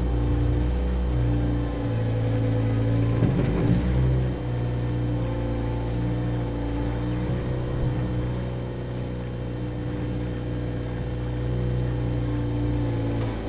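Bobcat 642 skid-steer loader's engine running steadily, its speed rising and falling a few times as the machine works. A brief rattle comes about three and a half seconds in.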